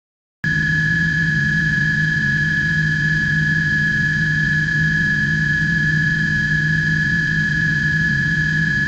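Spaceship-interior sound effect: a steady machine hum with a low drone and a constant high whine over it. It starts abruptly about half a second in and holds unchanged.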